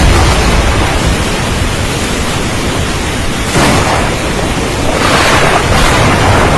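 Thunderstorm: a steady hiss of heavy rain under a low rumble of thunder, with a sudden louder surge about three and a half seconds in.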